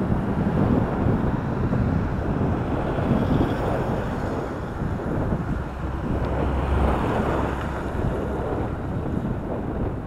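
Strong headwind buffeting the microphone of a camera on a moving bicycle: a steady, loud rush of wind noise, heaviest in the low end.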